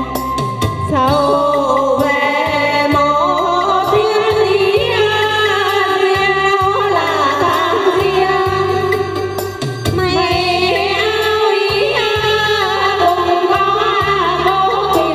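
Two women singing a Vietnamese quan họ folk song together into microphones, in long ornamented phrases with wavering pitch, over a low stepping bass accompaniment.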